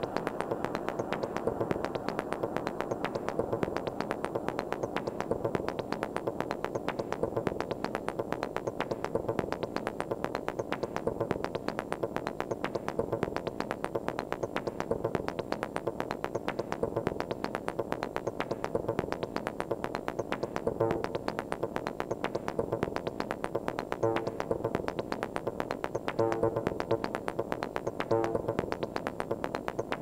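Korg Volca Sample playing a looping techno pattern of fast, evenly repeating sample hits. From about two-thirds of the way in, short pitched stabs repeat over the beat.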